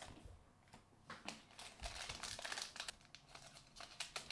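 Foil wrapper of a Donruss Optic football trading-card pack crinkling as it is handled, a faint run of light crackles starting about a second in.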